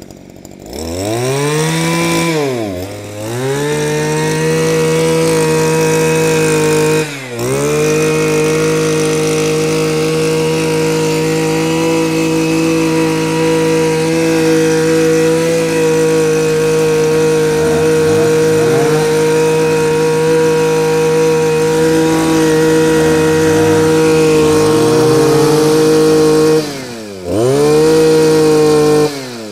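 A 26cc two-stroke brush cutter engine starts about a second in and revs up. It is held at high revs for most of the time, drops off briefly twice, and is then shut off near the end.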